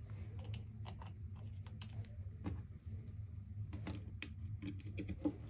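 Scattered light clicks and taps of small plastic parts being handled, over a steady low hum.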